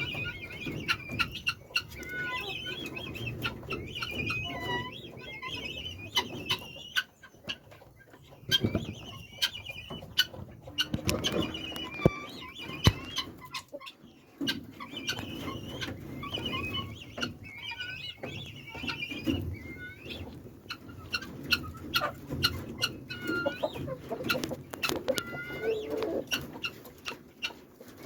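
A flock of poultry clucking and calling, with many short, high chirps throughout and scattered sharp clicks and knocks.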